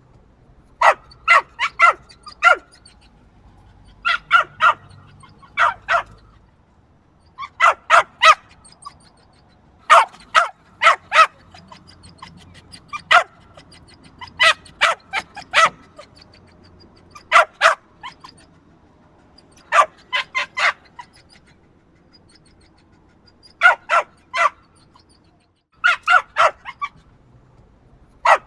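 Small yappy dog barking in quick clusters of two to five high, sharp barks, a fresh burst every second or two.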